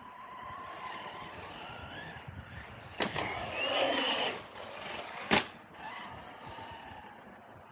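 Traxxas Sledge RC monster truck's electric motor whining as it drives in a concrete skatepark bowl, the pitch rising and falling with the throttle. About three seconds in there is a loud knock followed by a second and a half of louder tyre and motor noise, and a little past five seconds a sharp bang, the loudest sound, as the truck hits the concrete.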